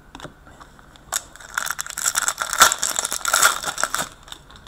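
Trading cards and foil card-pack wrappers being handled, a dense crinkling crackle for about three seconds, starting about a second in after a few light clicks.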